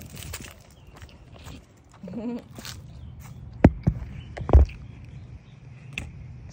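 Footsteps on a pavement, then three sharp knocks close to the microphone from the phone being handled, the loudest about four and a half seconds in.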